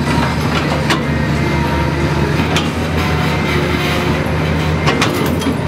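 Hitachi EX300LC hydraulic excavator's diesel engine running steadily, a low even hum, with a few sharp metallic clicks over it.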